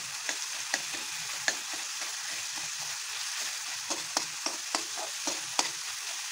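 Potatoes and tomatoes sizzling steadily in oil in a metal kadai, while a metal spatula stirs and mashes the tomatoes. The spatula scrapes and clicks sharply against the pan at irregular moments, more than once a second.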